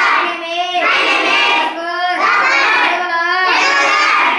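A class of children chanting in unison, reciting Urdu greeting phrases in a sing-song chorus, one phrase after another with only brief breaths between.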